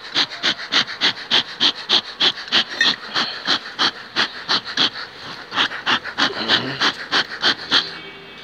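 Hand trigger sprayer squeezed in quick succession, about three short hissing squirts a second, spraying an anti-mite treatment over the bees on the hive frames; the squirts stop near the end.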